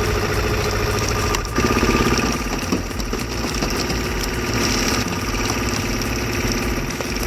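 Engine of a hydraulic log splitter running steadily; its sound shifts about one and a half seconds in.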